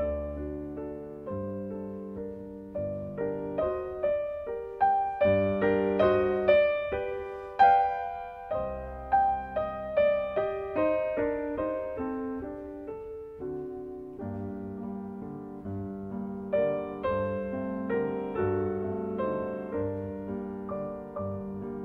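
Solo piano music: a gentle melody of single struck notes over chords, each note fading after it is played, growing louder in the middle and softer again from about two-thirds through.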